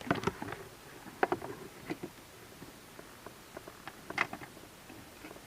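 Scattered sharp plastic clicks and taps as the cabin air filter access door behind the glove box is hooked in and clipped into place.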